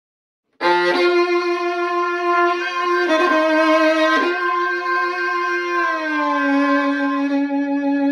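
Violin playing long held notes, starting abruptly about half a second in, with two short breaks around the middle and a slow slide down in pitch about six seconds in.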